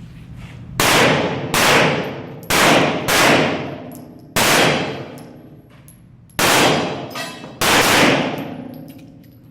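Seven pistol shots in an uneven string, the first two close together and a longer pause before the last two. Each shot is followed by a ringing tail lasting most of a second.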